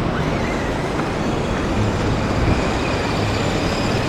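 Ocean surf washing up the beach, a steady loud rush of water noise.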